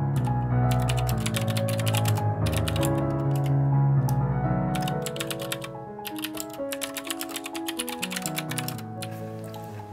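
Typing on a computer keyboard in quick runs of key clicks with short pauses, over soft, piano-like background music that slowly fades.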